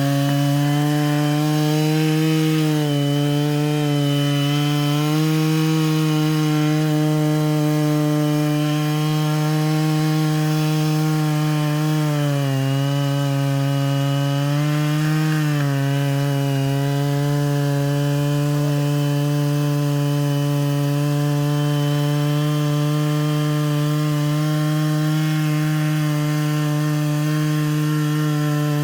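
Stihl MS 660 two-stroke chainsaw running at high revs under load on an Alaskan chainsaw mill, ripping a Western red cedar log into slabs with a rip chain on a 36-inch bar. The engine note holds steady, sagging briefly a few times as the cut loads it.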